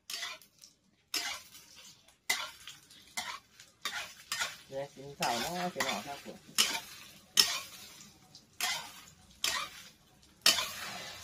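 Metal spatula scraping and knocking against a metal frying pan in a steady rhythm, roughly one stroke a second, while food sizzles in the hot oil.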